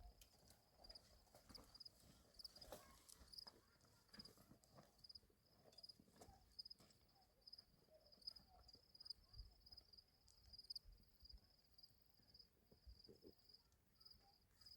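Faint cricket chirping: a high, rapidly pulsing trill that keeps on steadily, with scattered soft knocks underneath.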